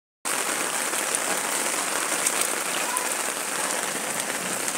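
Heavy rain pouring down in a steady hiss, with many close drops ticking as they hit.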